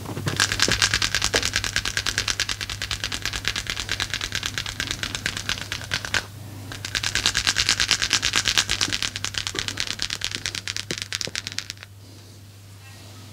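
Fast percussive massage strikes, a rapid clattering patter of about ten hits a second, in two runs of about six and five seconds with a brief break a little past the middle.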